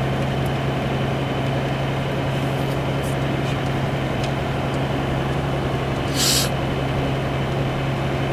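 Steady engine and road noise inside a moving truck's cabin, with a constant low drone; a short swish about six seconds in.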